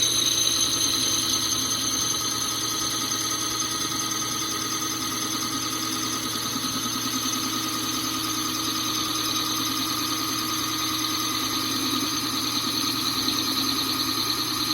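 Power drill running steadily with a diamond hole saw bit grinding into a ceramic flower pot, held at an angle to cut a starting groove so the bit will not slip. The whine and grinding stop suddenly near the end.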